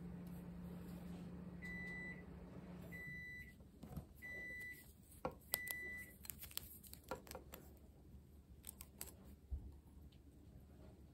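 Four electronic beeps at one high pitch, each about half a second long and a little over a second apart. Then faint clicks and taps as rubber bands are stretched and looped over the tines of a metal fork.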